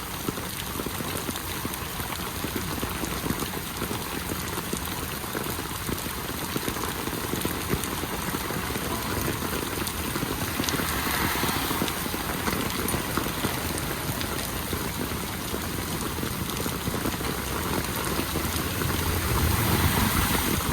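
Steady heavy rain falling, a constant hiss, with a low rumble building near the end.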